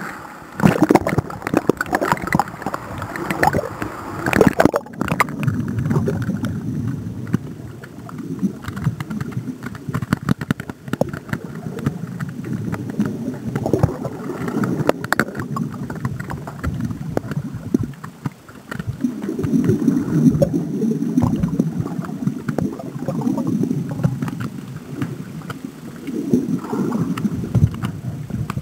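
Sea water sloshing and gurgling around a waterproof camera held at the surface on a landing-net pole. It is low and muffled, with small clicks and knocks, thickest in the first few seconds.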